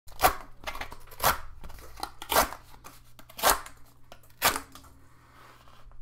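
Cardboard box being torn open by hand: five sharp ripping tears about a second apart, with smaller crackles and crunches of cardboard between them.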